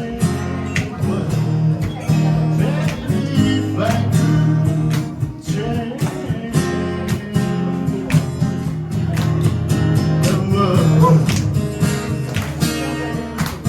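Acoustic guitar strummed in a steady rhythm, with a voice singing over it: a live singer-songwriter performance.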